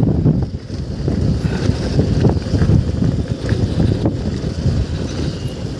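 Wind buffeting the microphone: a loud, gusty low rumble that swells and dips unevenly.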